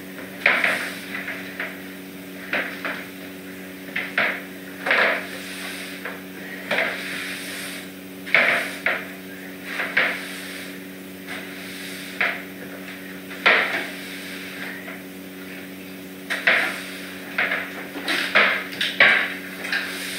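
Broom sweeping a hard floor in short, irregular strokes, about one every second or two, over a steady low hum.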